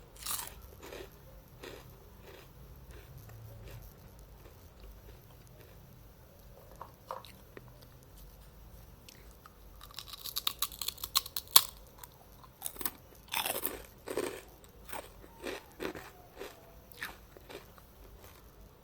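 Crunchy snack eaten close to the microphone: a crisp crunching bite at the start and another, longer one about ten seconds in, then steady chewing, roughly one chew every second or less.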